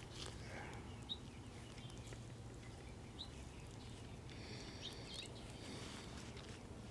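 Quiet room tone with a steady low hum and a few faint ticks or chirps, one about a second in and another about three seconds in.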